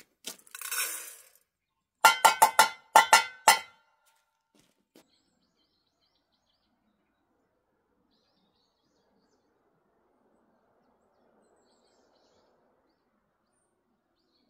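Dry cat kibble poured from a stainless-steel bowl, rattling into a feeding bowl, then a quick run of about eight sharp, ringing metallic clinks as the steel bowl is knocked.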